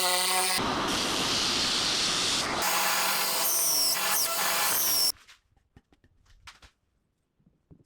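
An electric power tool working wood: a steady motor whine, then a harsh, loud cutting or grinding noise that stops abruptly about five seconds in, followed by a few faint clicks and taps.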